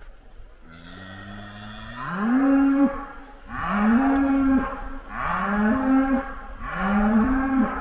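A lone cow mooing again and again: a quieter call at the start, then about four loud moos, each rising then holding for about a second, one every second and a half. She is crying like she has lost her herd.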